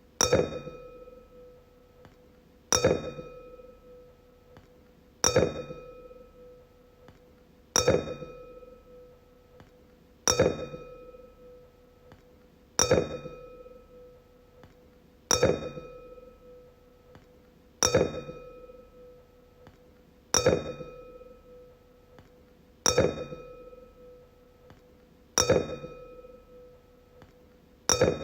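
Wine glass struck again and again, about once every two and a half seconds, each strike ringing out in a clear tone that fades over a second or two.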